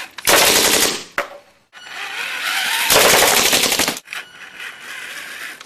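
Paintball gun on a remote-controlled robot firing rapid bursts: a short burst near the start, a longer one in the middle, then softer rapid firing.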